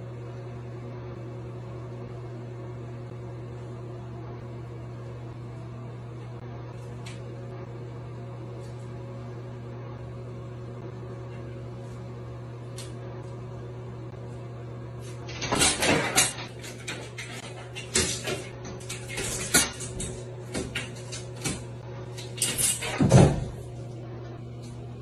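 Steady low hum, then after about fifteen seconds a run of loud clattering bangs and thumps lasting some eight seconds, the loudest near the end: a cat falling from a shower curtain rod into a bathtub.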